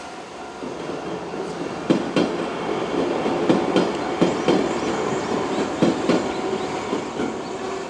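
A two-car 103 series electric train passing close by, its wheels clacking over rail joints in quick pairs over a steady running rumble.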